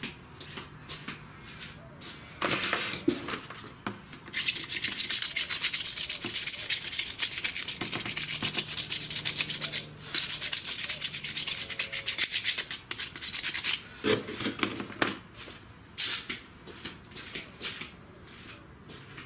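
Rapid back-and-forth rubbing of a round disc over a hard plastic frame, a fast scratchy scrubbing. It starts about four seconds in, breaks briefly about ten seconds in, and runs another three seconds or so. Short handling knocks and clicks come before and after.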